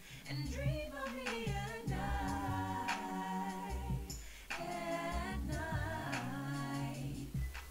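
Layered a cappella female background vocals: one singer's voice recorded many times over and stacked into close harmony, played back together in sustained phrases with a short break about halfway through.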